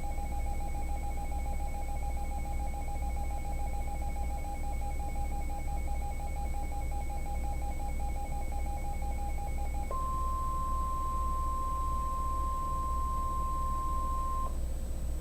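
NOAA Weather Radio alert tones. First comes about ten seconds of a fast-pulsing electronic data signal on two pitches, the encoded header that comes before a new warning. Then a steady 1050 Hz warning alarm tone sounds for about four and a half seconds and cuts off abruptly.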